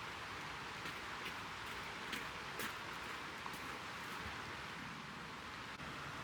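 A steady, faint hiss with a handful of sharp ticks scattered through the first few seconds.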